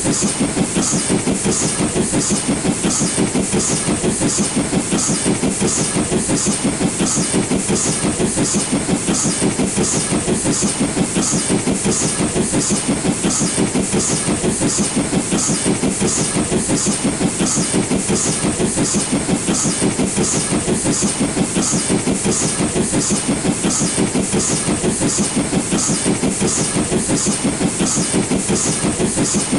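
LNER B12 4-6-0 steam locomotive working hard under load up a gradient, its exhaust beats coming in a fast, even rhythm.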